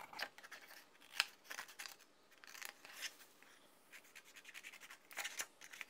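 Scissors cutting a sheet of white paper: irregular short snips with the paper rustling, in clusters with pauses between them, the sharpest snip about a second in.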